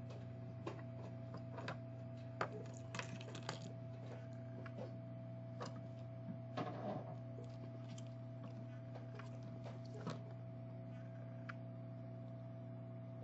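Light, scattered clicks and taps of small metal tools on a phone circuit board during soldering work, over a steady electrical hum.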